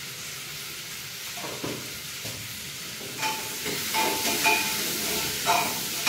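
Onions sizzling in hot oil in a steel pot, stirred with a metal spoon. From about halfway through, the frying grows louder and the spoon scrapes and clinks against the pot several times.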